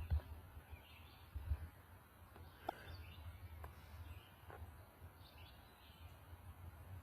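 Faint, scattered bird chirps over a low rumble and bumps on the microphone, with one sharp click about two and a half seconds in.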